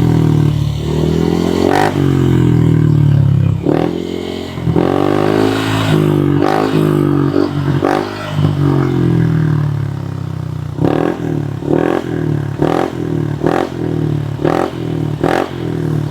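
Honda PCX160 scooter's single-cylinder engine through an Apido V5 aftermarket muffler, revved at low RPM: the pitch swells and falls several times, then about eleven seconds in the throttle is blipped quickly, about twice a second.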